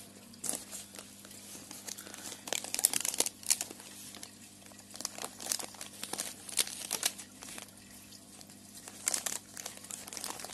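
Newspaper wrapping being crinkled and pulled open by hand, in irregular spells of crackling and rustling with short pauses between.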